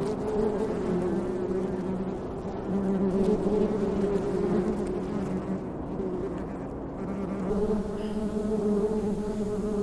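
Honeybees buzzing in a steady hum over an opened hive, the hum growing fuller about seven seconds in. The colony is fairly calm but edgy, which the beekeeper puts down to the hive not having been opened for a long time.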